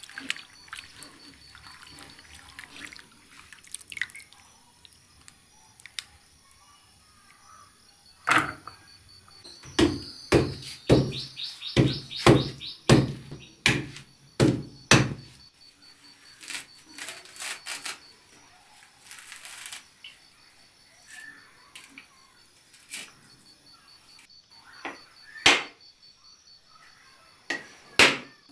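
A husked coconut struck again and again with a knife to crack it open: a run of about a dozen sharp thunks about a third of the way in, then a few more single strikes later, one of them near the end.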